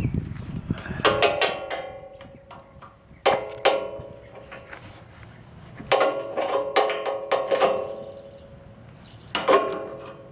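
Ratchet wrench clicking in short bursts as loose bolts on a mini excavator's controls are tightened, each run of clicks ringing metallically; four bursts with pauses between.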